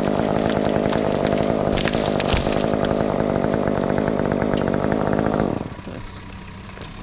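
Chainsaw running at full throttle in a cut, then dropping abruptly to a quieter idle about five and a half seconds in.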